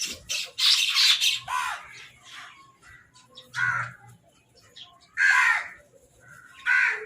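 Crows cawing: a run of loud calls that dip in pitch, a tight cluster about a second in, then single caws every second or two.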